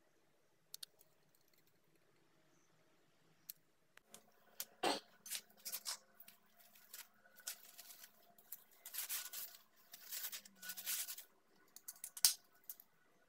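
Clear plastic bag of a cut-to-fit filter pad crinkling and rustling in irregular bursts as it is opened and the pad pulled out, after a few seconds of quiet with faint clicks. A sharp click near the end.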